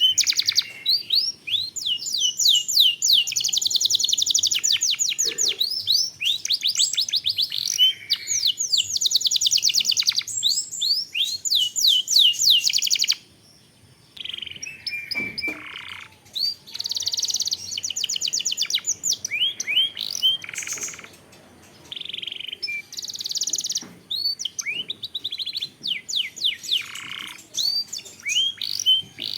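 Domestic canary singing: long, fast rolling trills of rapidly repeated high notes, broken by short pauses, with one longer pause about halfway through before the trills resume.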